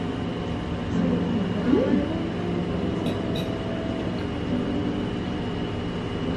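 Steady café room noise: a low hum and hiss with a faint steady high whine. About two seconds in there is a short hummed 'mm' from the person chewing.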